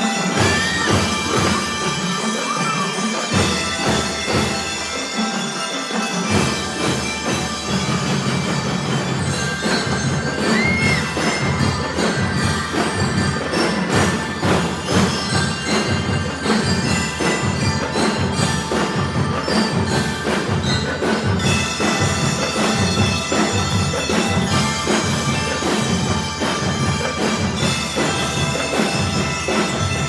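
A drum and lyre corps playing a Christmas tune: bell lyres ring out the melody over a steady beat of marching drums, with the deep bass drums coming in about six seconds in.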